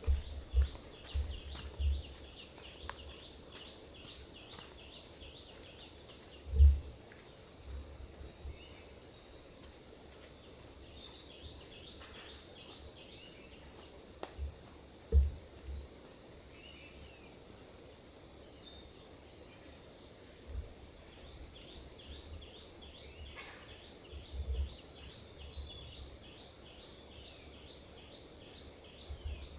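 Steady high-pitched drone of forest insects, with faint repeated bird chirps over it. Two short low thumps, about seven and fifteen seconds in, are the loudest sounds.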